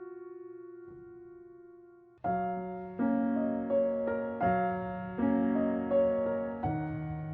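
Background piano music. A held chord fades away, then about two seconds in a new chord comes in with a gentle melody of struck notes, each note ringing and decaying.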